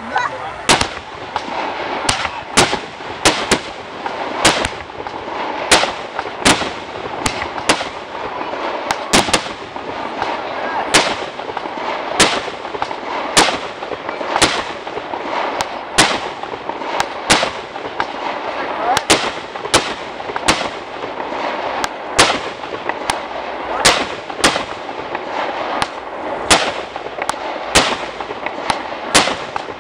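Fireworks going off in a rapid, irregular series of sharp bangs, more than one a second, over a steady hiss.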